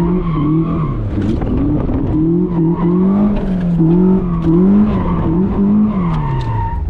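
1980s Toyota Corolla's four-cylinder engine revving up and down again and again as the car is driven hard through a tight motorkhana course, with the pitch dropping away near the end.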